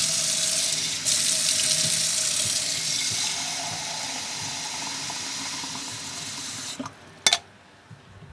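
Kitchen tap water running steadily into a glass coffee carafe at the sink, the faint tone of the filling vessel creeping up in pitch. The tap cuts off near the end, followed by a single sharp clink.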